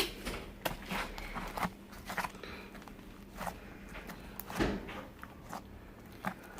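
Homemade slime being handled and squeezed in the hands, giving irregular small clicks and sticky pops.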